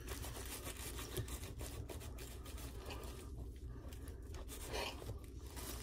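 Bread knife sawing through a soft sub roll.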